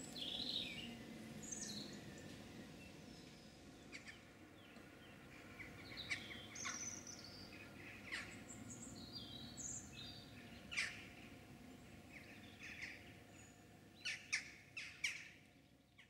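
Birds chirping and singing in short scattered calls over a faint steady background hum, with a few sharper chirps near the end before the sound fades out.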